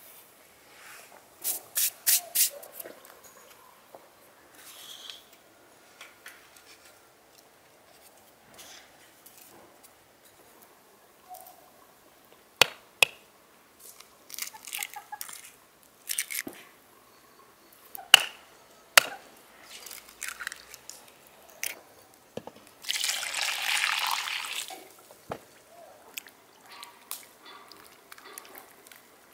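Dough being made in a bowl: a few sharp cracks as eggs are broken against the bowl, then about two seconds of liquid pouring into the flour, then soft squishing as hands begin mixing the wet flour near the end.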